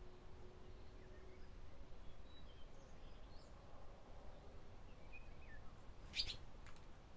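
A few faint, short bird chirps, then about six seconds in a brief, sharp flurry as a barn swallow flutters off its mud nest.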